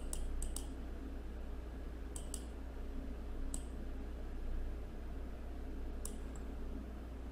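Computer mouse clicking: a quick run of three or four clicks at the start, a pair about two seconds in, then single clicks later, over a faint low steady hum.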